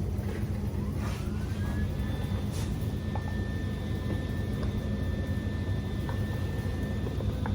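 An electric motor spinning up: its whine rises over about a second and then holds a steady pitch over a constant low hum, with a few faint clicks.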